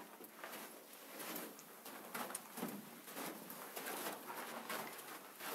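Footsteps on the stony floor of a rock tunnel, faint and irregular.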